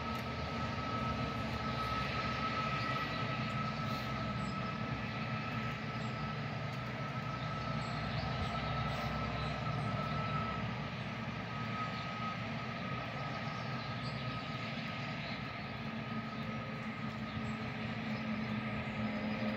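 Steady outdoor background rumble of a town, with a faint steady high whine over it.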